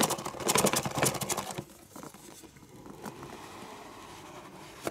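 Fingers rubbing and gripping a cardboard gift box, a dense run of scratchy friction lasting about a second and a half, then only faint handling noise.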